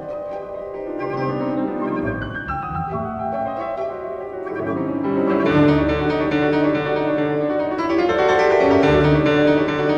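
Instrumental music led by piano, a slow classical-style piece that grows fuller and louder about halfway through.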